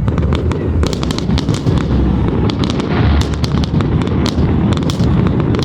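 Fireworks display going off: a rapid, dense string of sharp bangs and crackles over a continuous low rumble.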